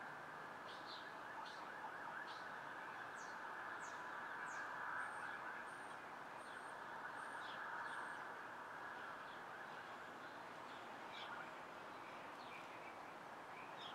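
Steady distant city traffic hum, swelling slightly a couple of times, with small birds chirping over it in short, quick high notes, including a quick run of five high chirps in the middle.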